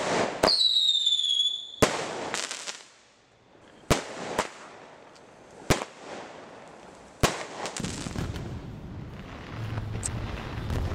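Aerial fireworks bursting: a series of sharp bangs about every one to two seconds, with a falling whistle after one of the first bursts. Near the end a low rumble sets in.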